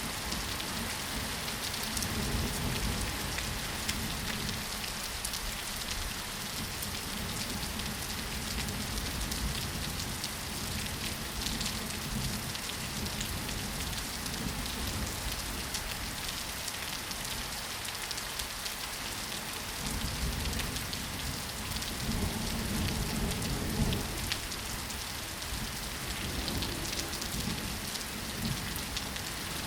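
Steady rain falling, an even hiss dotted with fine drop ticks. A low rumble swells in now and then, strongest past two-thirds of the way through.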